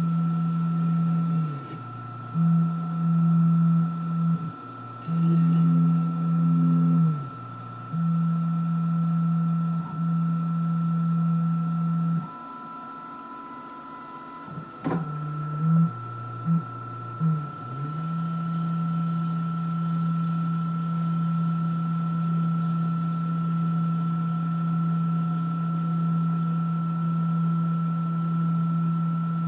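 Rownd desktop CNC lathe turning an aluminium wine stopper: a steady high whine from the spindle drive under a lower motor hum that stops and starts as the tool moves between cuts. Near the middle the hum drops out for a few seconds, a single click sounds, and then it runs steadily again.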